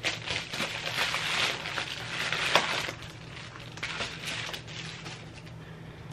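Plastic mailer package crinkling and rustling as it is handled and opened, loudest and most crackly in the first three seconds, then fainter scattered crackles.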